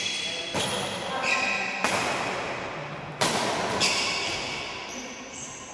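Badminton rackets striking a shuttlecock in a rally, sharp hits about every half second to second, echoing in the hall, with shoes squeaking on the tiled floor between shots.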